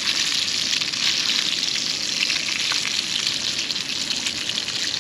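Fresh-caught fish frying in a pan over a campfire: a steady sizzle with many small crackles and pops.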